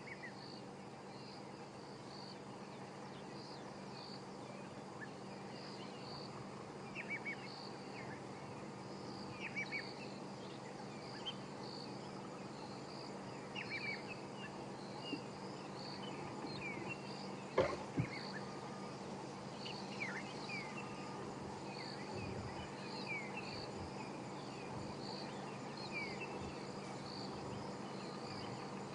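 Bush ambience of insects chirping in a steady run of short, high pulses, with scattered short bird chirps and a faint steady low hum. A single sharp click about two-thirds of the way through.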